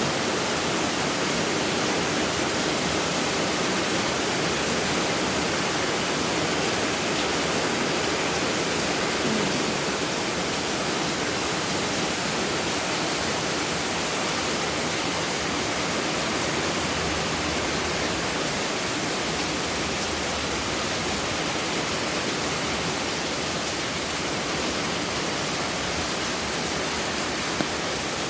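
Heavy rain pouring down, an even steady hiss.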